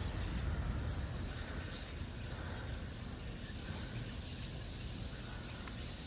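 Faint, scattered chirps from a large flock of birds over a steady low outdoor rumble.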